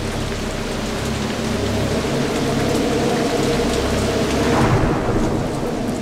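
Heavy rain with a long roll of thunder that builds and peaks about four to five seconds in.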